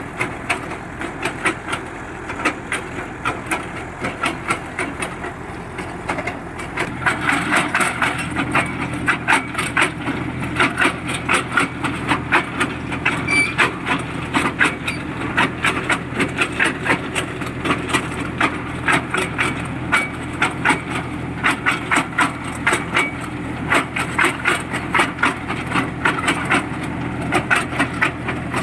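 Borewell drilling rig at work: its engine runs steadily under a fast, regular knocking from the drill, which grows louder about a third of the way in.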